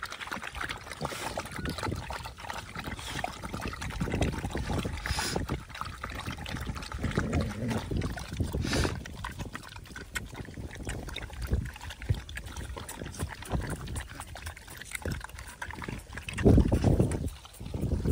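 Several dogs lapping liquid from a plastic tub, with quick irregular slurps. A brief loud low rumble comes near the end.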